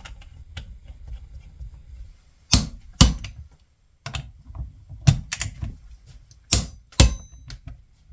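Steel hand tools on the ring-gear bolts of a differential carrier as they are tightened: a string of sharp, irregular metallic clicks and clanks, a few of them ringing briefly.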